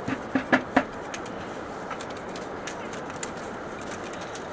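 A bird's three or four short, low calls in quick succession in the first second, over a steady hiss with scattered faint clicks.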